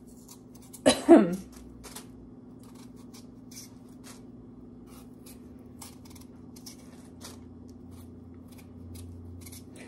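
A paring knife shaving the skin off a raw potato by hand: short, irregular scrapes and ticks about every half second, over a steady low hum. A brief vocal sound comes about a second in.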